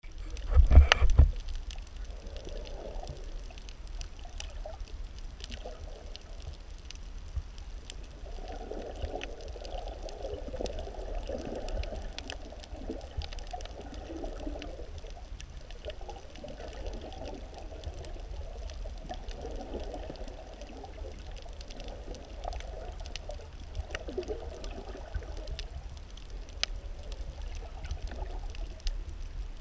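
Muffled underwater sound picked up by an action camera in its waterproof housing: a steady low water rumble with uneven sloshing swells. There is a loud thump about a second in, and faint scattered clicks throughout.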